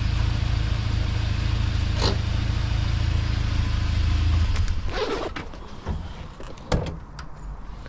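UAZ Patriot engine running with a steady low rumble, then switched off about four and a half seconds in. A short rattle follows, then a sharp knock.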